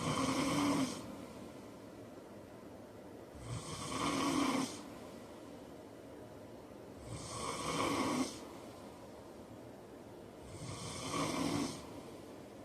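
A heavyset man snoring in his sleep: four snores at an even pace, about three and a half seconds apart, each lasting about a second with quieter breathing in between.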